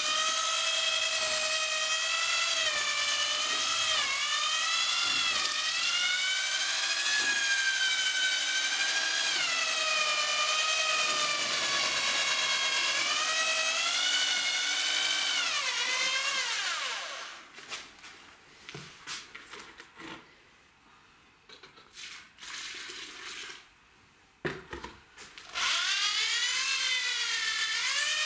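Handheld electric drill with a paddle mixer stirring cement-sand mortar in a metal bucket. Its motor whine wavers up and down in pitch as the thick mix loads it. About 16 seconds in it winds down and stops, a few knocks follow, and near the end the drill starts up again.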